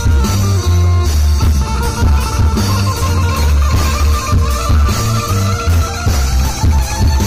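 Live band playing loudly through a PA: electric guitar and bass guitar over a heavy, pulsing bass beat, with a hand drum keeping the rhythm.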